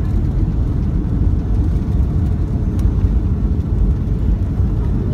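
Jet airliner's engines and wheels heard inside the cabin during the landing roll on the runway: a loud, steady low rumble.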